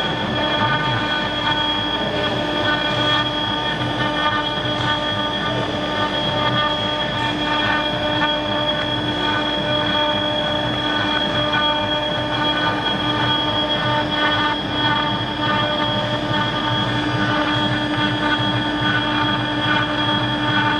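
Mini CNC router (BJD6060) spindle running with a steady whine of several held tones, while its engraving bit cuts into an aluminium plate with a continuous rough metallic scraping.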